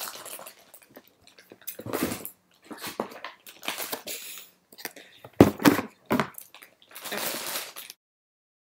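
Cardboard box and plastic packaging of an action figure being handled and pulled open: irregular rustling and scraping with a few sharp knocks and crackles, the loudest about five and a half seconds in. The sound cuts off suddenly near the end.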